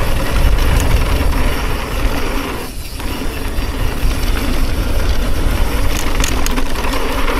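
Mountain bike riding fast down a dirt jump trail: a steady rumble and rattle of tyres and frame over the dirt, with a brief lull about three seconds in.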